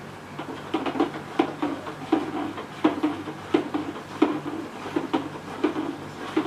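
Sodium carbonate (cooked baking soda) being stirred into water in a plastic bucket: rhythmic sloshing strokes about three every two seconds, with light knocks of the stirring stick against the bucket.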